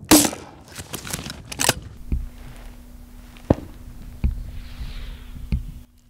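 Under-barrel 40 mm grenade launcher firing: a sharp report right at the start with a ringing tail, a few more sharp cracks over the next two seconds, then four dull low thuds spaced about a second apart.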